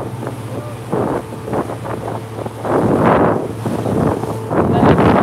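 Wind buffeting a phone microphone aboard a motorboat running through choppy water, in gusts about every two seconds, with water splashing and a steady low engine hum beneath.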